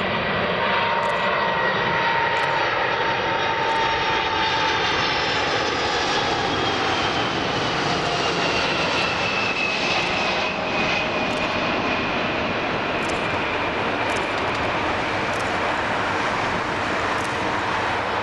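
Boeing 747-400 airliner on its landing approach, its four turbofan engines making a steady, loud noise with whining tones that slowly fall in pitch as it goes by.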